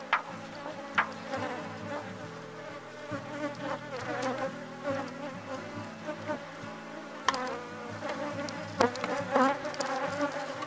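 Honeybees buzzing in a steady, busy hum around an open-air hive, single bees droning louder as they fly past. A few sharp knocks, about a second in and again near the end, come from the hive's lid and a corrugated roof sheet being handled and set on top.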